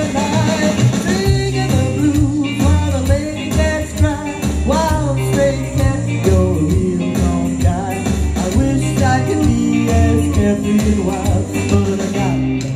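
Karaoke singing: a voice singing through a microphone and PA over a recorded backing track with a steady pulsing bass line.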